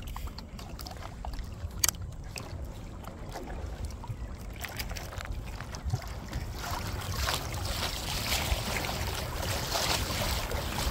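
Wind buffeting the microphone and water lapping against a kayak hull, the splashy hiss building from about halfway through. A single sharp knock about two seconds in.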